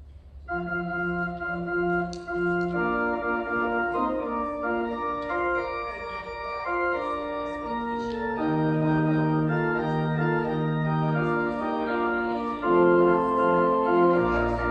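Organ music: held chords in several voices, starting about half a second in, with a deep bass note coming in near the end.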